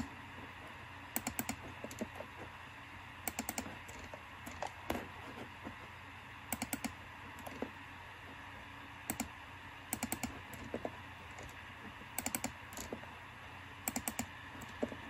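Computer keyboard keys tapped in short clusters of two to four quick clicks, a cluster every second or two.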